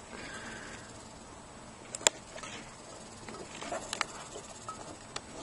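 Light handling of a cardboard graphics card box: faint rustling with a few scattered sharp clicks and taps, the sharpest about two seconds in.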